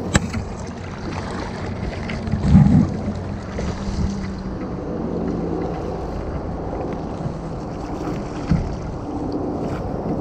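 Wind rumbling on the microphone over moving water, with water splashing and occasional knocks. There is a louder low thump about two and a half seconds in.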